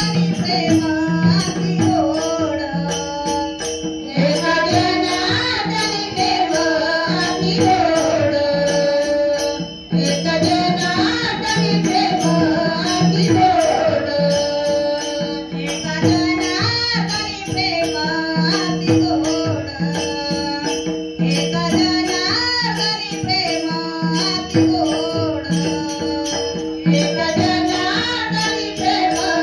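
Devotional singing of a Marathi abhang, the melody bending and ornamented over a steady held drone, with a regular drum beat and metallic jingling percussion keeping time.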